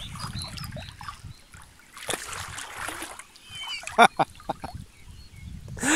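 A person jumping into a river: a splash of water about two seconds in, then a few short voice sounds around him as he surfaces. Water laps close to the microphone throughout.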